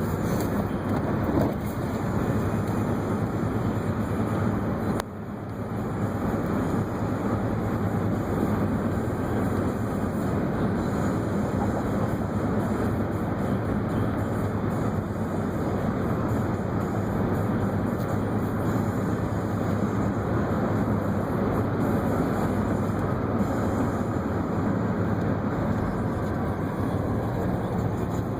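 Steady road noise of a moving car heard from inside the cabin: tyre and engine rumble, with a brief dip in level about five seconds in.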